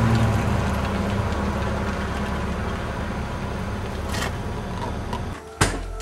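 Idling vehicle engine with steady outdoor noise, slowly fading. About a second before the end it drops out briefly, and then a single sharp knock sounds.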